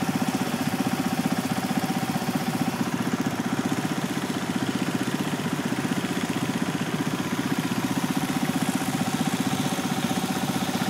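Small garden tractor engine running steadily, with a fast, even putter.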